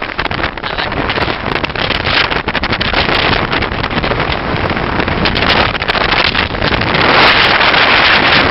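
Strong mountaintop wind buffeting the microphone in gusts, getting louder from about seven seconds in.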